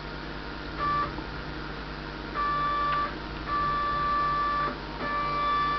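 Stepcraft 600 CNC machine's stepper motors whining as an axis is jogged slowly from the keyboard: four steady high-pitched whines that start and stop abruptly, the first very short and the later ones about a second each.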